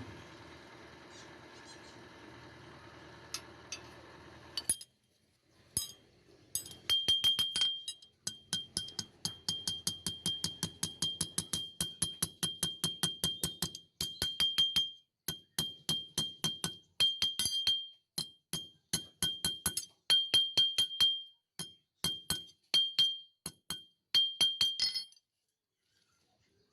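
Hammer blows on steel, several a second in runs with short pauses, each ringing at the same high pitch. For the first few seconds, before the blows start, a steady hum.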